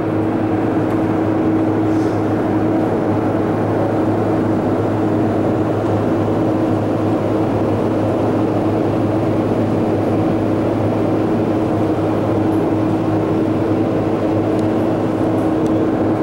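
Steady mechanical hum with a constant low tone, even in level throughout, like a fan or motor running.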